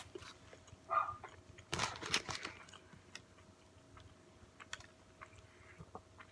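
A dog gives one short bark about a second in, then paper rustles and crinkles briefly. After that come soft, scattered clicks of a person chewing with his mouth closed.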